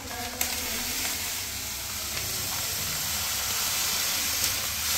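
Aquarium sand pouring steadily out of a packet into a container with a continuous hiss.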